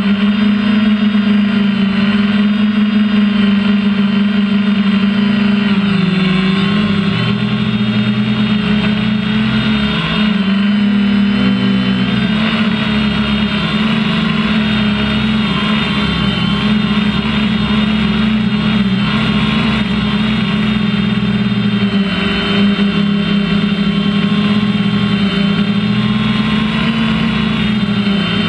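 Drone's electric motors and propellers whining loudly and steadily, heard from the camera mounted on the drone itself. The pitch wavers and shifts for a few seconds partway through as the motors change speed.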